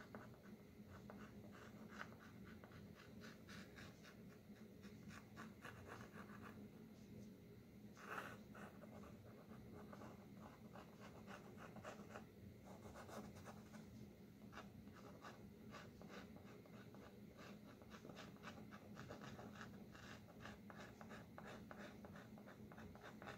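Faint scratching of white chalk drawn in quick repeated strokes over a dry acrylic-painted canvas panel, with a low steady hum underneath.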